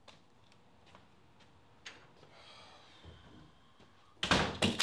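Front door being opened and shut, with a few faint clicks, then a short loud clatter of several knocks about four seconds in.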